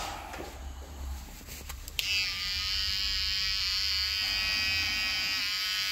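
Electric hair clippers switch on about two seconds in and run with a steady buzz, after a few faint knocks.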